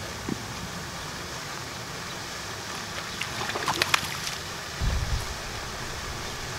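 Water splashing briefly about three and a half to four seconds in as a largemouth bass is let go by hand at the water's edge. Steady wind noise underlies it, with a short low rumble of wind on the microphone just after the splash.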